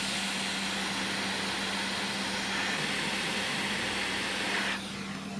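Hot-air rework station blowing steadily on a graphics card's circuit board to desolder a shorted component: a rushing air hiss over a steady low hum. The hiss eases slightly near the end.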